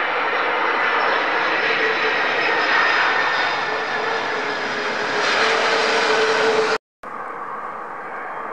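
Boeing 767 jet airliner's engines running loudly with a few held whining tones as it rolls out after touchdown, swelling a little before cutting off abruptly about seven seconds in. After a brief silent gap, quieter steady jet noise from another 767 on final approach.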